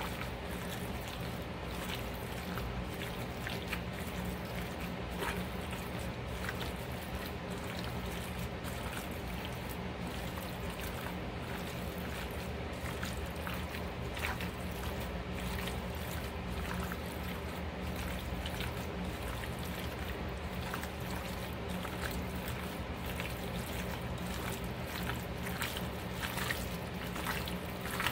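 Gloved hand squeezing and massaging marinade into sliced raw beef in a glass bowl: a steady run of soft wet squishes and squelches. A constant low hum runs underneath.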